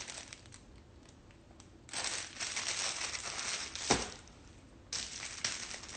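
Clear plastic packaging crinkling in bursts as it is handled, with one sharp click near the middle.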